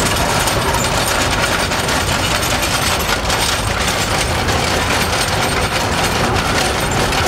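Fordson crawler tractor running close by: a steady, rapid clatter of its engine and steel tracks.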